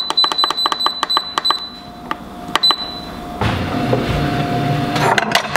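Instant Pot electric pressure cooker's control panel beeping in a rapid, even string as the cooking-time button is held and the timer counts up; the beeping stops about a second and a half in and one more single beep follows. After that a steady low rumble with a few sharp clicks near the end.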